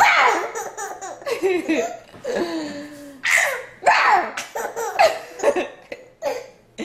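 A toddler laughing in short bursts, again and again.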